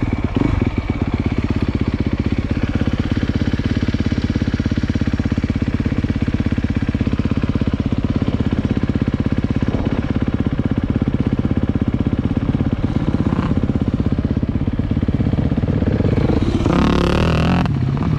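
Dirt bike engine heard up close from the bike being ridden on a motocross track. It runs at a steady pace for most of the time, and the note changes and wavers near the end.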